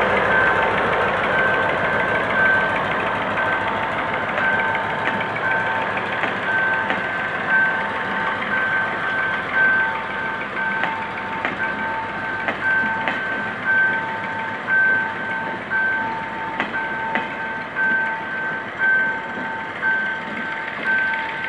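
Level crossing warning alarm beeping steadily in a two-tone pulse while a passenger train passes over the crossing. The GM G22W diesel locomotive's engine fades in the first seconds, then the coach wheels clack rhythmically, about once a second, over the crossing rails.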